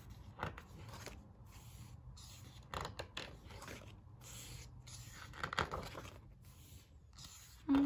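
Soft rustling and brushing of heavy photo-book pages as they are smoothed and turned by hand, a few separate rustles spaced a couple of seconds apart. A short voiced hum comes right at the end.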